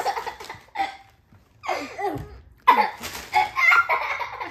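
A plastic bag crinkles briefly, then children burst into loud laughter in two bouts.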